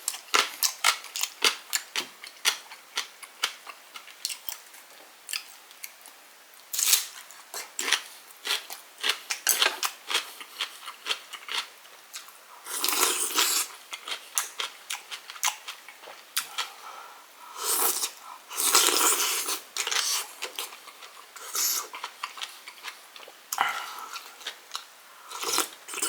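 Close-miked eating sounds: irregular chewing and mouth clicks, with a couple of longer noisy stretches about 13 and 19 seconds in.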